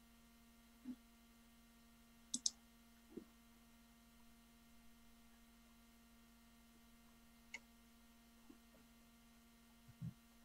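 Near silence: faint room tone with a low steady hum and a few scattered small clicks and knocks, the sharpest a quick double click about two and a half seconds in.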